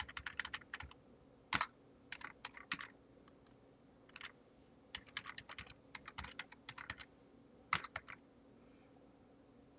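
Computer keyboard typing in quick, uneven bursts of keystrokes, stopping about eight seconds in.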